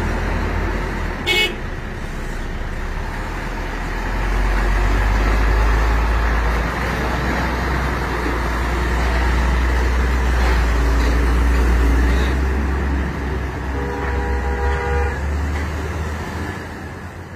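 Diesel engine of a Hino 500 truck running with a low rumble as the truck pulls away and drives off, loudest in the middle and fading near the end. A short high toot sounds about a second in, and a horn sounds briefly near the end.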